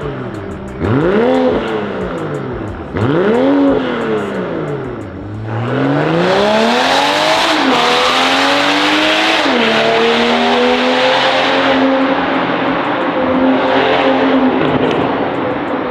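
BMW M440i's B58 turbocharged straight-six through a catless-downpipe valvetronic aftermarket exhaust, blipped twice, rising and falling in pitch each time. About five seconds in it pulls hard, engine pitch climbing with two upshifts that drop the note, then holds a loud steady drone.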